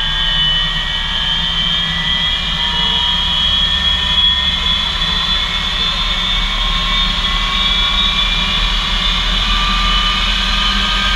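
English Electric Lightning's twin Rolls-Royce Avon turbojets running, heard from inside the cockpit: a loud, steady jet whine with several high tones that drift slowly in pitch, over a low rumble.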